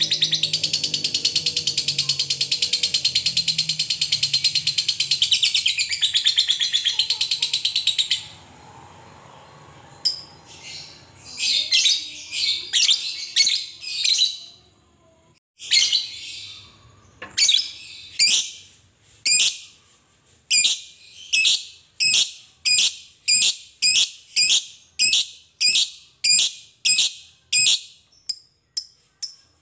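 Lovebird giving a long, fast chattering trill (ngekek) that stops about eight seconds in. After a short pause, some scattered calls lead into a regular run of separate high-pitched calls, about one and a half a second.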